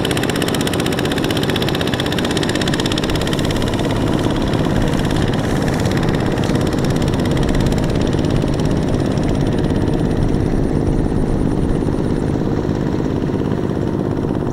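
Several Kubota RT120 walking tractors' single-cylinder diesel engines running steadily under load, pulling trailers loaded with rice sacks.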